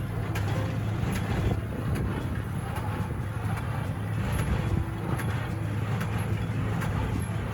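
Cockshutt 1650 tractor engine running steadily, with light clicks and knocks at uneven intervals over the engine note.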